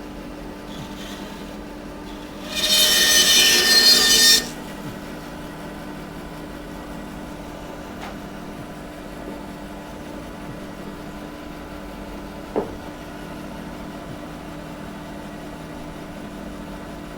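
Power saw running steadily with a hum, its blade cutting through a block of wood in one loud burst about two and a half seconds in that lasts about two seconds. A single short knock follows later.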